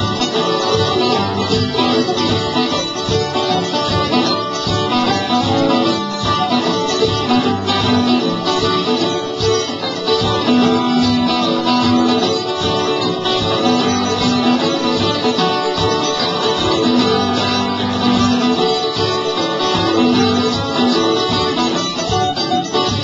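Live acoustic folk band playing an instrumental passage: two acoustic guitars strummed and picked, with held melody notes over them.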